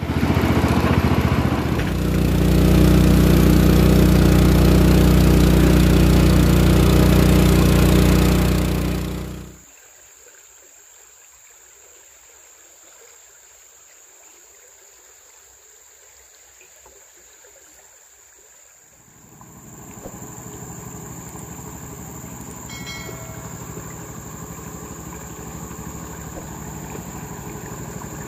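Motorboat engine running loud and steady, then cutting off abruptly about nine seconds in. After a quiet spell, a fainter steady noise rises in.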